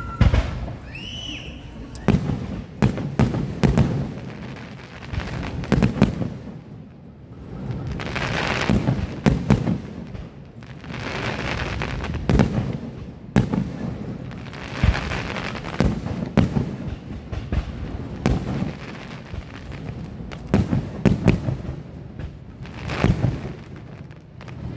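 Aerial fireworks shells going off: many sharp bangs in quick succession throughout, some coming in tight clusters.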